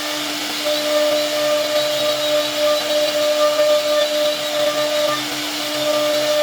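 CNC router spindle running with a steady whine over a continuous rushing hiss.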